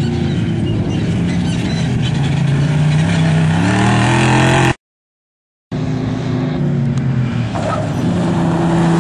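Off-road desert race vehicle's engine at full throttle, its pitch climbing as it accelerates toward the microphone. The sound drops out completely for about a second midway, then returns with the engine note falling and rising again as the driver works the throttle.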